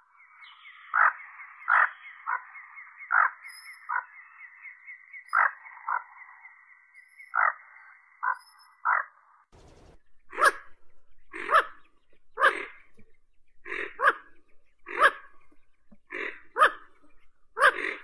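Common goldeneye giving short, harsh calls, roughly one a second. A thin, steady high tone runs behind the calls in the first half, then stops, and the calls carry on.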